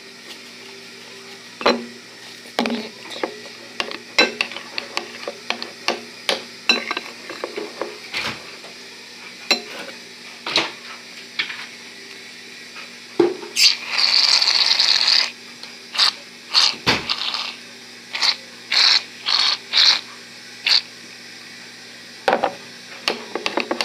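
Slime being mixed in a bowl: irregular clicks and taps of a utensil against the bowl, with a short hissing rattle about fourteen seconds in and a quicker run of taps just after.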